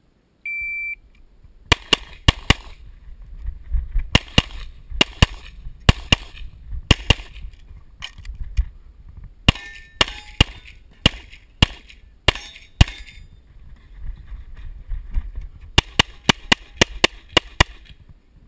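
An electronic shot timer beeps once to start the course of fire, then a Tanfoglio pistol fires, mostly in quick pairs of shots. A fast run of about eight shots comes near the end.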